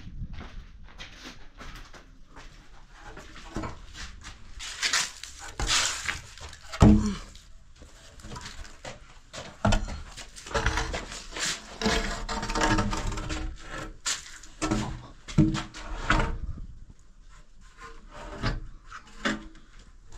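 Wood being handled and worked: irregular knocks, clatters and scraping.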